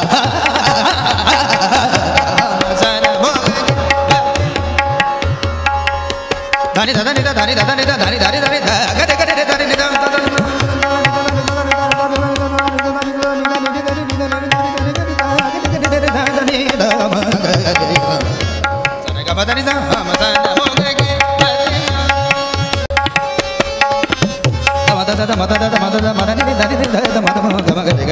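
Hindustani classical music: tabla keeping a steady rhythmic cycle under a gliding melodic line, over a sustained drone.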